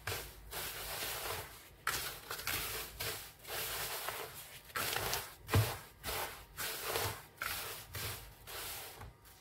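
A hand rubbing oiled fine semolina for couscous against the sides of a plastic bowl, working the oil into the grains: a gritty swishing repeated about two or three times a second, with one heavier bump about five and a half seconds in.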